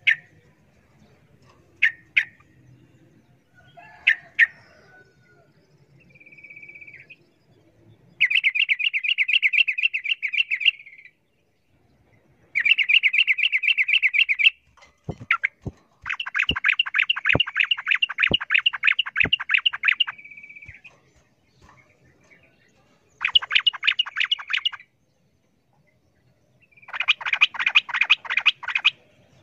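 Yellow-vented bulbul (trucukan) giving its excited, rapid fighting song: a few short single calls, then repeated bursts of fast, tightly rolled chatter, each lasting one to four seconds with short pauses between. During the longest burst, about halfway through, there are several sharp knocks.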